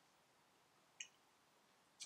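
Near silence: room tone, with one short faint click about a second in.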